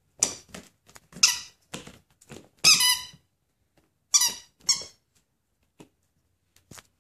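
A rubber squeaky toy squeaking in short, high-pitched bursts as a puppy bites it. There is a quick run of squeaks over the first three seconds, the longest near the end of that run, then two short squeaks a second later and a few faint clicks.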